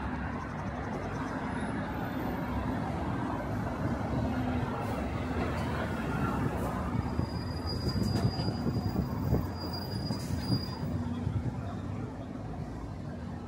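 Heavy vehicle rumble with a steady high-pitched metallic squeal that lasts about three seconds in the middle.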